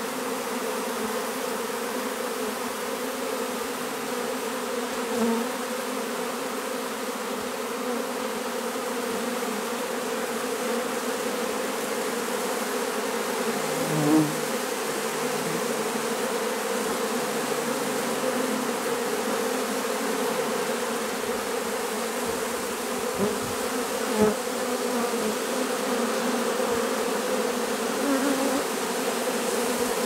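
Honey bee swarm buzzing: the steady, dense hum of many bees flying and clustering, with a couple of brief louder swells about 14 and 24 seconds in.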